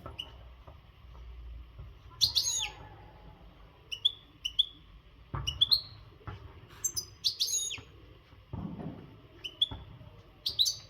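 European goldfinch singing in short, sharp chirps and twitters, roughly one a second, with a few louder and fuller bursts. This is the song of a male in breeding condition. A couple of dull thumps fall in the middle.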